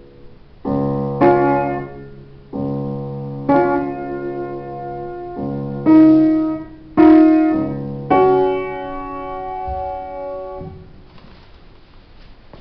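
Upright piano playing the closing chords of a piece: a run of struck chords, the last one held for a couple of seconds and then cut off abruptly, followed by quiet room tone.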